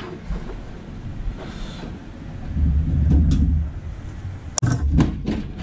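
Handling of a desktop PC case as its side panel is taken off: a low rumble for about a second midway, then several sharp clicks and knocks near the end.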